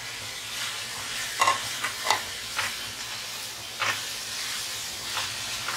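Chicken and shredded vegetables sizzling in a hot metal wok while they are stir-fried with a wooden spatula, with about five sharp knocks and scrapes of the spatula against the wok.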